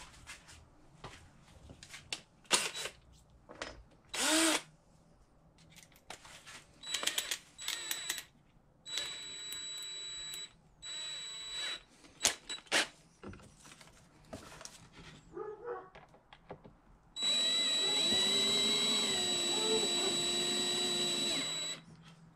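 DeWalt cordless drill/driver giving two short spins, then running steadily for about four and a half seconds near the end as it drives a screw through a wooden plaque, with a steady high motor whine. Clicks and knocks of tools being handled on the workbench come before.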